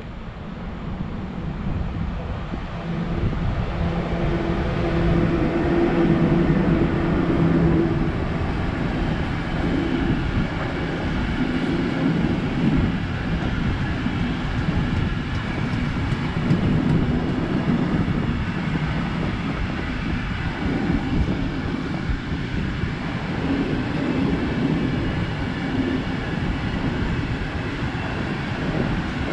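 Electric-locomotive-hauled freight train of covered hopper wagons passing close by. The sound swells over the first few seconds as the locomotive comes past with a hum, then settles into a steady rumble of the wagons rolling by.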